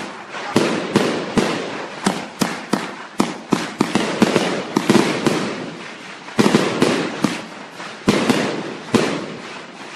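Fireworks going off in rapid, irregular succession: sharp bangs over a continuous crackle, easing off near the end.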